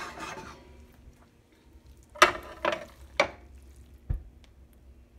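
Metal spoon scooping cooked corn from a pan into a ceramic baking dish: a soft scrape at the start, then three sharp scrapes about half a second apart, and a dull thump near the end.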